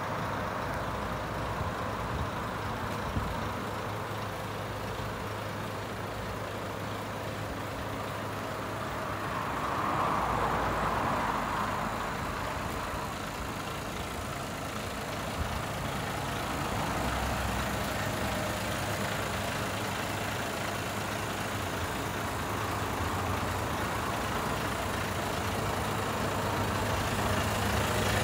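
Iveco Stralis tractor unit's 460 bhp Euro 6 diesel engine idling steadily, briefly louder about ten seconds in.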